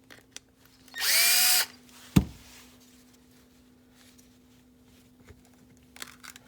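Power drill spinning briefly, its whir rising in pitch as it spins up, backing out a screw on a door lock actuator's plastic housing. A sharp knock follows, then light clicks of the parts being handled.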